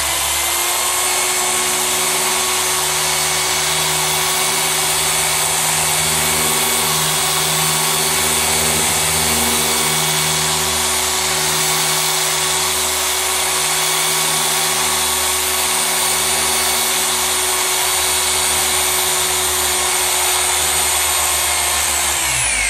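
Rupes 3-inch air-powered sander running steadily with a 2000-grit disc, damp-sanding paint to level orange peel: a high whine over a dense hiss of air. Its pitch falls as it winds down at the very end.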